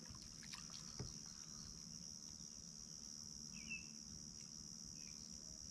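Faint, steady high-pitched chorus of insects such as crickets, with a single short bird chirp a little past halfway and a soft knock about a second in.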